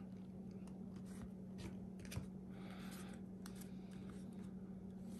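Faint rustle and light ticks of trading cards being slid and flipped by hand, one card behind another, over a steady low hum.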